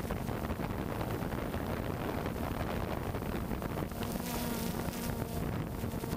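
DJI Phantom 2 quadcopter's motors and propellers buzzing steadily, picked up by the camera slung beneath it, with wind rushing over the microphone.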